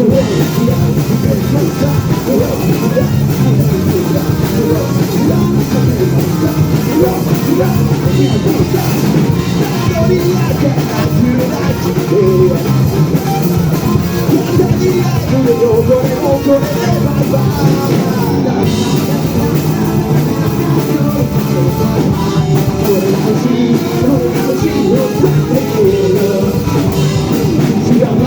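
A rock band playing: drum kit and guitar, loud and continuous.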